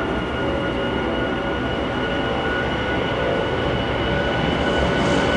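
Airbus A340's four jet engines at high thrust on the takeoff roll: a steady roar with a high whine, growing a little louder near the end.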